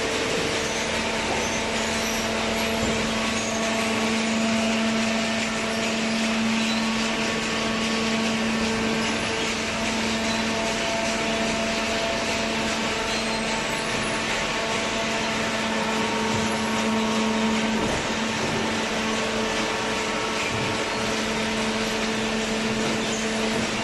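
Industrial cardboard shredding and baling machinery running steadily: a constant machine hum with a steady tone over a wide rushing noise.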